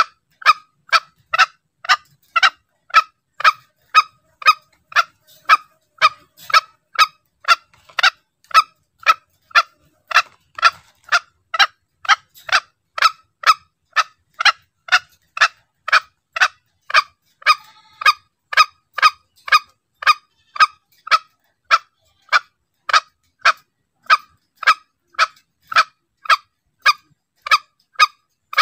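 Green junglefowl calling: short, sharp notes repeated about twice a second in an even, unbroken series.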